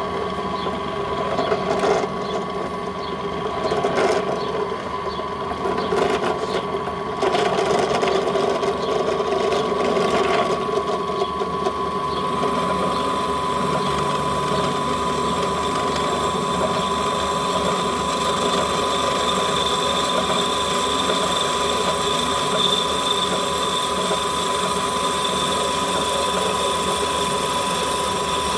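Pillar drill running with a steady motor whine while a twist bit cuts into a steel bar. Irregular knocks and chatter come over the first dozen seconds as the bit starts to bite; after that the cut runs evenly.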